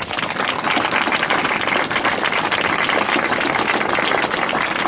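Crowd applauding, many hands clapping at once; it breaks out suddenly and holds steady.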